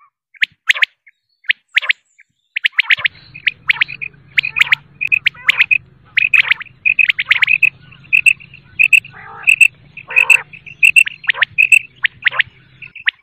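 Common quail calling over and over: many short, sharp high notes, often in quick runs of two or three, with calls overlapping.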